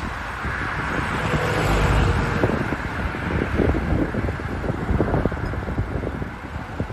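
Highway traffic running past at the roadside, with wind buffeting the microphone; the vehicle noise swells to its loudest about two seconds in.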